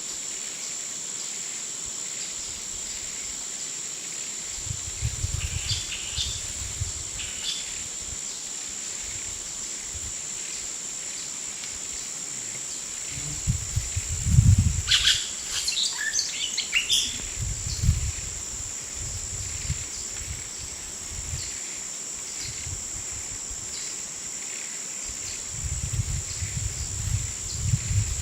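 Tropical jungle ambience: a steady high-pitched insect drone throughout, with bird chirps and calls twice, about a third of the way in and around the middle. Bursts of low rumble come and go three times, the loudest near the middle.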